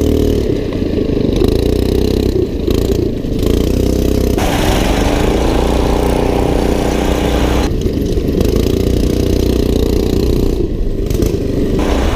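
Single-cylinder go-kart engine running under way, its pitch rising and falling as the throttle is worked. There is a harsher, noisier stretch in the middle.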